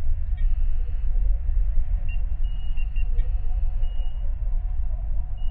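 Star Trek–style starship bridge ambience: a steady deep engine hum, with high thin console tones and a few short computer beeps over it.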